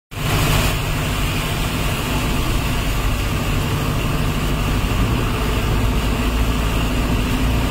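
A vehicle engine running with a steady low hum while driving through floodwater on a city street, under a constant rushing noise.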